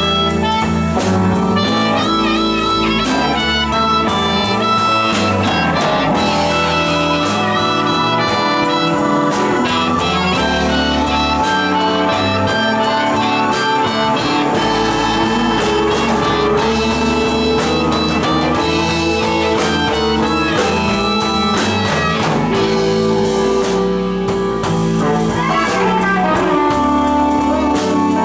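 Live blues band playing an instrumental passage: electric guitar over bass and drums, with sustained, wavering notes, and no vocals.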